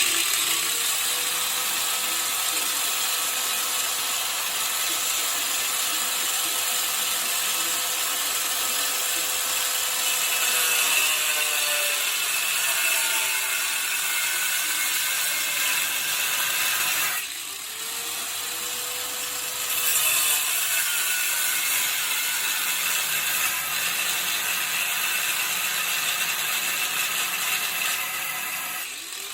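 Electric cut-off tool with an abrasive wheel cutting through thick steel: a continuous grinding rasp over a motor whine whose pitch sags as the wheel bites and recovers as it eases off. It stops briefly about two-thirds of the way through, then starts cutting again.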